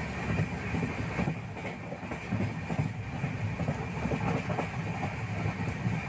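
Running noise of a moving train, heard from inside a carriage: a steady low rumble.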